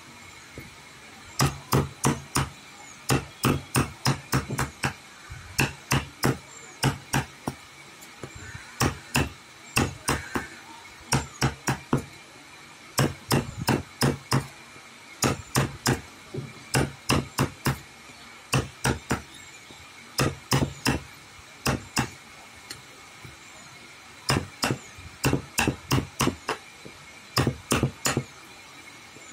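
Hammer blows struck in quick runs of several strokes, about three a second, with short pauses between runs.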